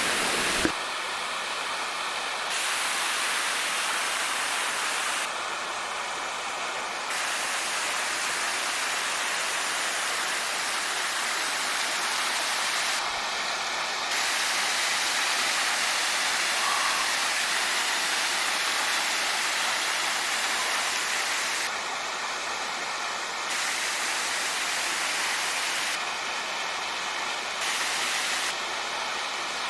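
A waterfall's steady rush of falling water, its tone shifting slightly every few seconds.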